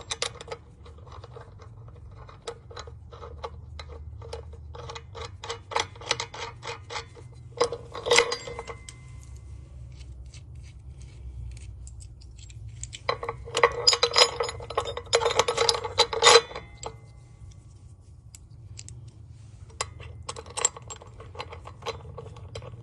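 Hand ratchet wrench clicking in quick runs as 1/2 inch bolts and lock nuts are tightened, in about three bursts with scattered metal clinks of hardware between them.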